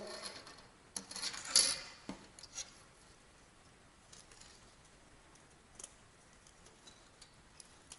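Small plastic clicks and rustles as a fishing float rig and a plastic rig winder are handled, bunched in the first two or three seconds, then a few faint ticks.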